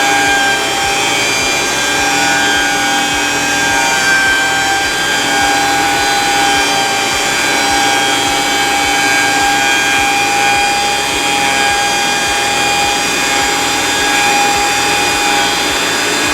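Cutech 40800H two-speed benchtop planer running steadily with a constant high motor whine. A regular low beat runs underneath.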